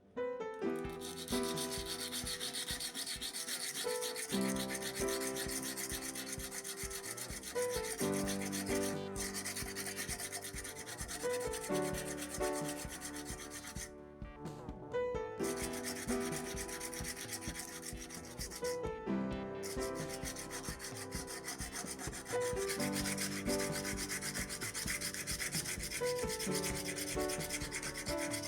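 Continuous abrasive rubbing, sanding the rust off old iron blacksmith's tongs. It pauses briefly three times, the longest break coming about halfway through. Background music plays under it.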